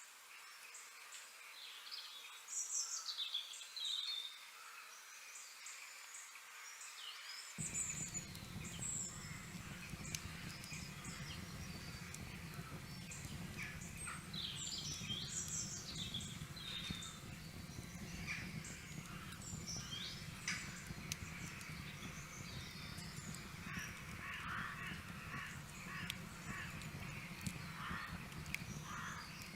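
Wild birds chirping and calling in short, quick notes, many overlapping. A steady low rumble sets in abruptly about a quarter of the way in and stays under them.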